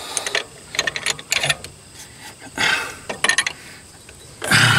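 Scattered clicks and clanks of hand work on an engine's accessory drive as the fan belt is worked back over the pulleys, with a short rush of noise about two and a half seconds in and a louder clatter near the end.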